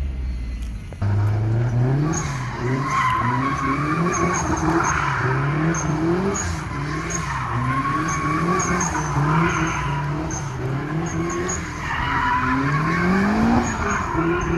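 Turbocharged Mazda MX-5 Miata's four-cylinder engine revving up and down repeatedly as the car drifts, with tyres squealing on and off. The sound jumps louder about a second in.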